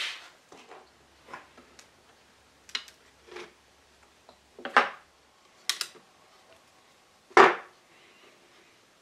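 Spring clamps being handled and snapped onto a glued wooden mirror frame: a series of short, separate clacks and knocks of clamp and wood, the two loudest about 5 and 7.5 seconds in.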